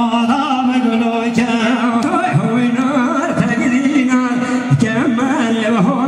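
Live Kurdish wedding music for govend line dancing: a singer's voice over continuous instrumental backing with a steady held tone.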